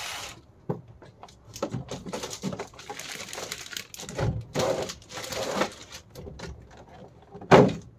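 Rigid clear plastic blister packaging being handled: irregular crackling, creaking and clicking as the trays are shifted and parts lifted out, with one louder plastic knock near the end.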